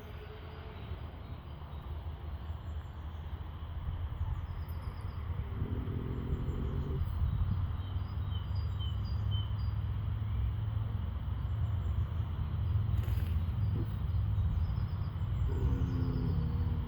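A sleeping horse lying down and snoring: two drawn-out snores about ten seconds apart, one about six seconds in and one near the end, over a steady low rumble that grows louder after the first few seconds. Birds chirp faintly.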